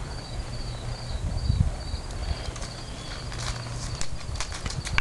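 Insects chirping in a steady pulsing rhythm, with a horse's soft hoof steps on grass and a few clicks in the second half.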